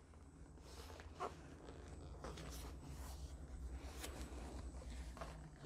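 Faint rustling of a neoprene protective cover being handled on a Gotway Msuper X electric unicycle, with a few soft taps as the unicycle is turned on a tabletop.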